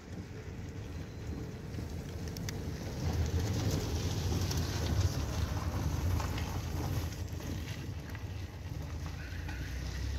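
A car passes slowly close by: its engine and tyre noise builds from about three seconds in and fades after about seven, over wind rumbling on the microphone.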